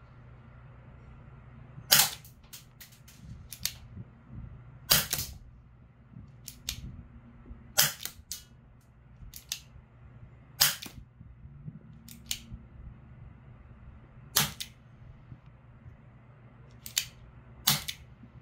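Marushin M36 airsoft revolver firing single shots at a target, a sharp pop about every three seconds, with quieter clicks in between.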